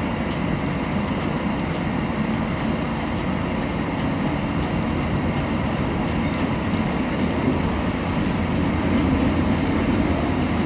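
Streetcar running along its track, heard from inside the car: a steady rumble of motors and wheels on rail, with a few faint clicks.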